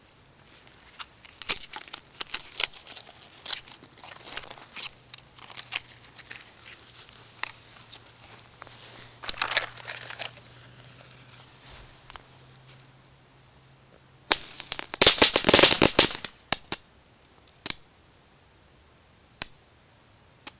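Small youth-grade crackling fireworks going off: scattered sharp crackles for about ten seconds, then a dense, loud burst of crackling about fifteen seconds in, followed by a few lone pops.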